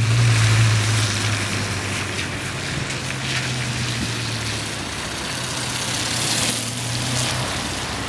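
A vehicle engine idling with a steady low hum, under an even hiss. The hum fades out near the end.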